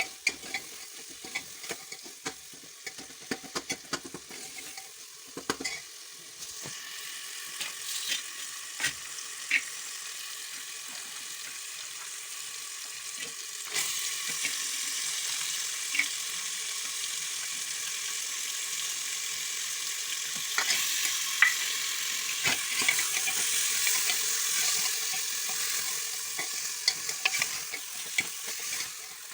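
Food sizzling as it fries in a cooking pan, stirred with a spatula that clicks and scrapes against the pan. The sizzle steps up in loudness about a quarter and again about halfway through.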